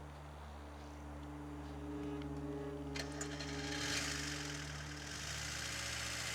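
Car engine idling with a steady low hum; a high hiss swells about three and a half seconds in.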